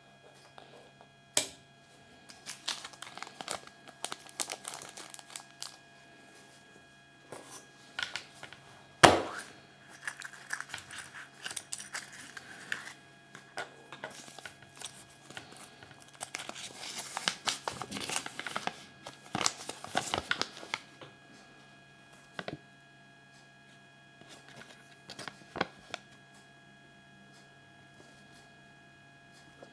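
Foil wrapping of a Kinder Surprise egg being crinkled and torn open in irregular bursts of rustling. There is one sharp crack about nine seconds in, and only a few scattered clicks near the end.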